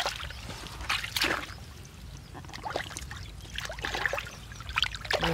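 Hands splashing and scooping through shallow muddy water, with irregular splashes and trickling about every second or so.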